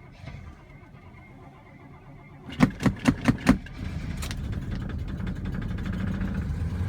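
1971 Oldsmobile Cutlass S engine catching on a hard cold start with the gas pedal held to the floor: about two and a half seconds in it fires with a quick string of about six loud pops, then keeps running and gets steadily louder.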